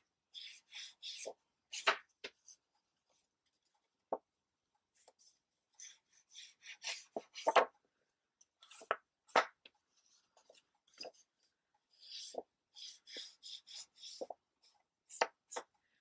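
Foam ink blending tool rubbed along the edges of a sheet of paper to distress them with ink. It goes in short scuffing strokes, several a second, in groups with pauses between, and a few light taps as the tool is dabbed on the ink pad.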